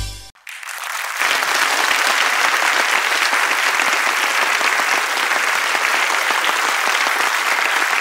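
A large seated audience applauding steadily. The applause starts just after a snatch of music cuts off at the very beginning.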